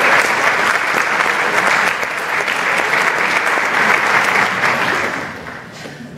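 Audience applauding, a dense steady clapping that fades away over the last second or so.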